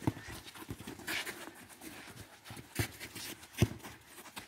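Players' footsteps running on artificial turf and a football being kicked, a run of short thuds with the sharpest about three and a half seconds in, over someone panting close to the microphone.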